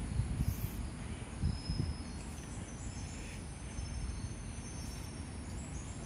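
Steady low rumble of background noise, with faint, thin high-pitched bird chirps coming and going from about two seconds in.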